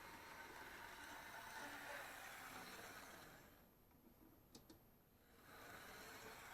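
Faint whir of a Mantua Tyco 0-4-0 saddletank model locomotive running on its track. It fades out for a couple of seconds around the middle, with two small clicks, then comes back.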